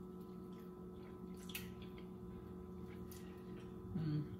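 Quiet kitchen with a steady electrical hum. A few faint clicks and scrapes come from a metal fork on a plate while someone eats, and there is a short hummed "mm" near the end.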